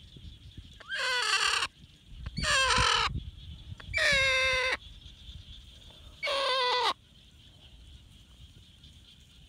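Watercock giving four loud, drawn-out squawking calls, each under a second, the last coming after a longer pause.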